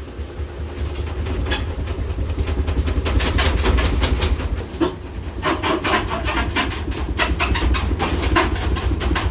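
Samsung front-load washer shaking violently in its spin, a deep rumble with loud banging and rattling from the machine and the dryer stacked on it, the knocking getting denser and louder about halfway through. The violent shaking comes from the shipping bolts left in the washer.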